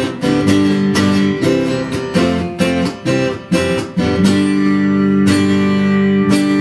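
Acoustic guitar strumming chords. The strums come quickly at first, then thin out about four seconds in, with the chords left ringing.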